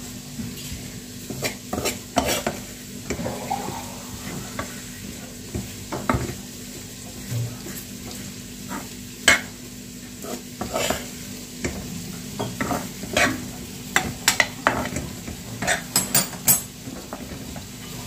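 Steel spoon stirring and scraping a dry, crumbly gram-flour (besan) mixture as it roasts in an aluminium pan, with irregular clinks of the spoon against the pan, over a steady low hum.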